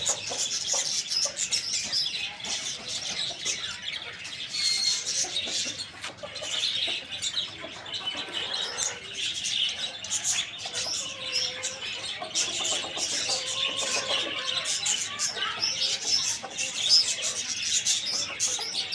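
A flock of small birds chirping without pause, many short high calls overlapping into a dense chatter.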